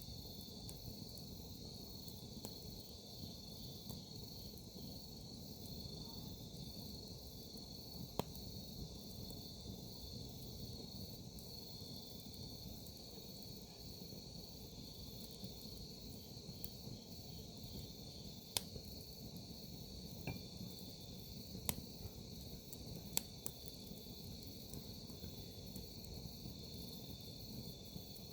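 Crickets and other grass insects chirping in a steady high trill, over the low hiss of a wood campfire. The burning firewood gives about five sharp crackles and pops, spread through the middle of the stretch.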